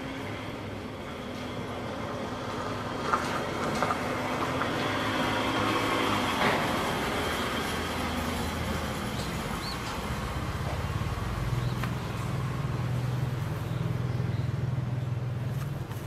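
Motor vehicle noise: a broad rumble that swells to a peak about six seconds in, then a low steady engine hum near the end, with two brief sharp clicks about three and four seconds in.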